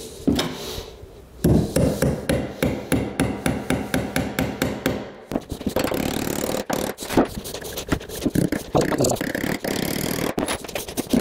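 Nails being driven with a DeWalt hammer into a 2x4 pine frame set under a subfloor. After a single blow come rapid, even hammer strikes about four a second for several seconds, then more irregular knocks and blows.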